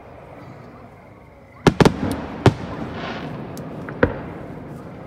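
Aerial fireworks shells bursting: after a lull, a quick pair of sharp bangs a little under two seconds in, another half a second later and one more near the four-second mark, each trailing off in a rumbling echo, with a brief hiss between.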